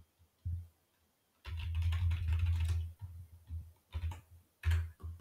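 Typing on a computer keyboard: a single keystroke, then a quick run of keystrokes lasting about a second and a half, then a few separate strokes near the end.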